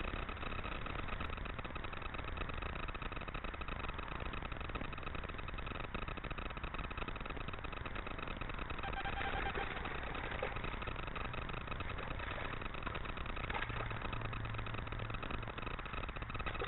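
Steady rushing of a small stream running over a shallow riffle, under a constant faint whine.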